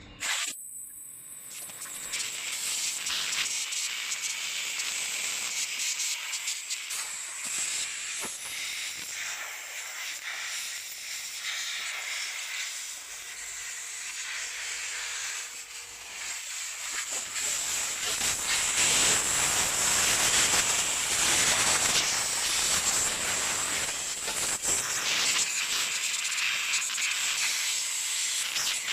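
Compressed air from an air compressor's blow gun hissing in bursts of varying strength as it blows sand and dust off a radio-controlled car. It starts suddenly and gets louder in the second half.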